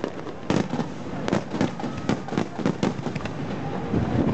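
Aerial firework shells bursting in a quick irregular run of sharp bangs, two or three a second, with crackling between them.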